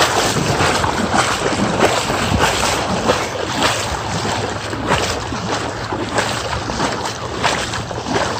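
Legs wading through shin-deep floodwater, with continuous sloshing and irregular splashes at each step.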